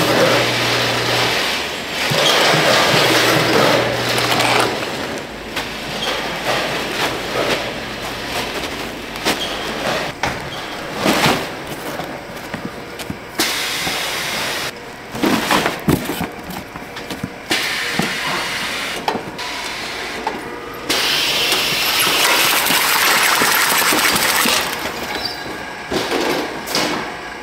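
Packing-line noise: plastic snack bags rustling and crinkling over a low machine hum in the first few seconds, then cardboard boxes being handled and moved on a conveyor, with several sharp knocks around the middle.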